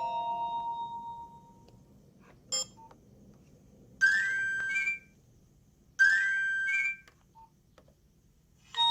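A Nokia 2310 mobile phone playing its ringtones. The last notes of one melodic tone die away and a single click follows. Then a short ring sounds twice, two seconds apart, each about a second long with a quick rising sweep up to a high note.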